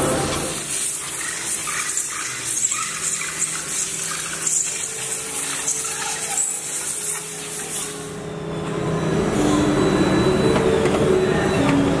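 Small conductive carbon pills rattling and swishing by the handful as they are shaken across a perforated metal tooling plate in a steel tray. Under it runs a tune of held notes, which grows louder and takes over near the end.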